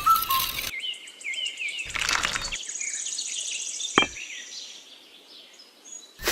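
Birds chirping: a series of short repeated chirps and a fast, high trill, with two brief scraping noises early on and a sharp click about four seconds in.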